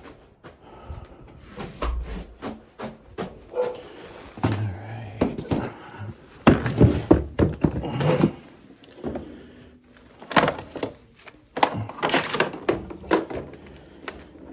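Irregular clunks, knocks and clatter of tools and parts being handled.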